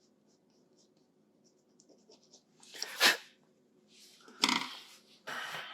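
A few faint clicks, then short, forceful bursts of a person's breath, the loudest about three seconds in and another about four and a half seconds in.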